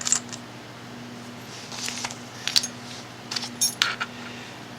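Small flashlight parts clicking and clinking as the flashlight is handled and reassembled, in three short clusters of sharp clicks.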